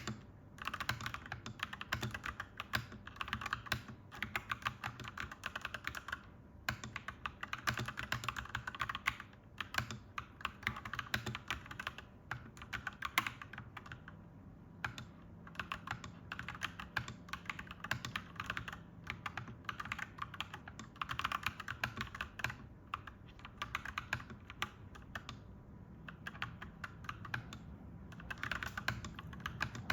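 Clacky mechanical keyboard being typed on in quick runs of keystrokes, broken by a few short pauses.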